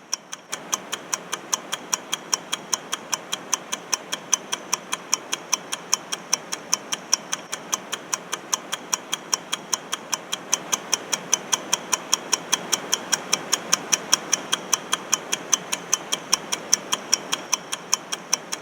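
Countdown-timer sound effect: a clock ticking quickly and evenly, about four ticks a second, over a steady hiss that comes in just under a second in.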